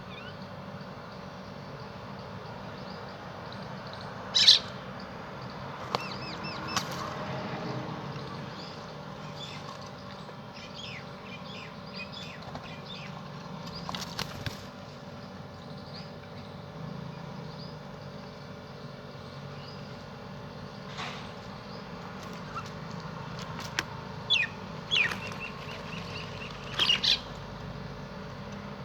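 Birds chirping and calling, with scattered short high chirps and a few loud sharp calls: one about four seconds in, one around the middle, and a cluster near the end, over a steady low background hum.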